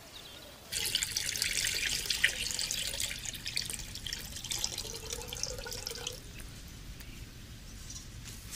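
Water being poured into a container, splashing. It starts abruptly about a second in and stops about six seconds in.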